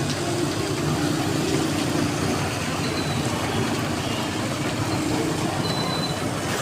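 A motor vehicle's engine idling with a low, steady hum, under a constant hiss of monsoon rain.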